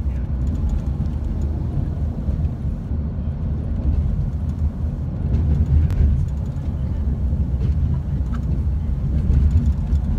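Steady low rumble of road and engine noise heard from inside a moving vehicle at road speed.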